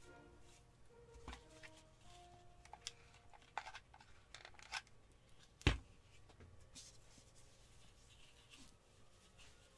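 Quiet handling of paper and cotton wool on a tabletop: soft rustling and a few light taps, with one sharp click a little over halfway through.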